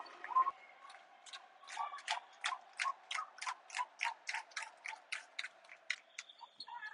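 Rhythmic hand clapping, a steady run of sharp claps at about four a second, which starts about a second in and stops near the end.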